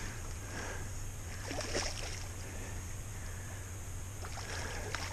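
Faint sloshing and small splashes of water from a hooked steelhead thrashing in the shallows at the edge of the bank, over a steady low rumble.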